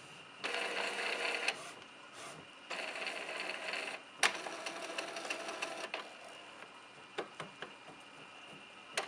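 Epson T50 inkjet printer running: two short bursts of mechanical whirring, a sharp knock about four seconds in followed by more mechanism noise, then scattered clicks. These are the knocks its owner cannot account for and is asking about.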